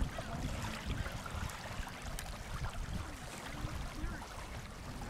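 Wind rumbling on the microphone over river water lapping at the bank, with a few light clicks.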